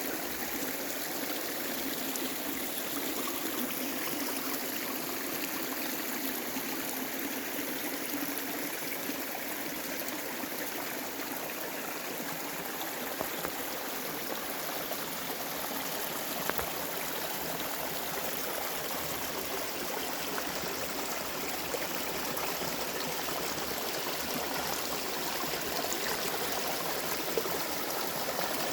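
Mountain stream water babbling and trickling over rocks, a steady rushing with small splashes.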